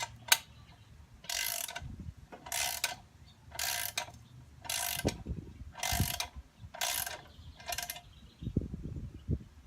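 Socket ratchet wrench clicking as a nut is tightened: about seven back-swings, roughly one a second, each a quick run of pawl clicks. The nut is a locking nut being snugged up.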